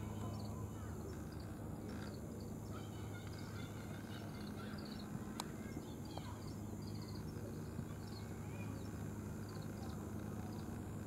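Outdoor ambience: a steady low hum with small birds twittering faintly and repeatedly throughout, and a single sharp click about halfway through.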